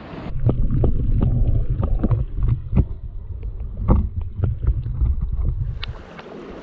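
Underwater sound from a submerged action camera in shallow sea water: a muffled low rumble of moving water with many scattered sharp clicks and knocks. The rumble cuts in about a third of a second in and gives way near the end.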